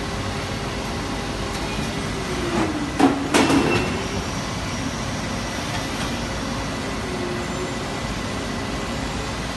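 DMG Mori NZX-S 1500 CNC turning center with gantry loader running steadily. About three seconds in, a motor whine falls in pitch and climbs back up, with a few sharp clunks, as an axis slows and speeds up again.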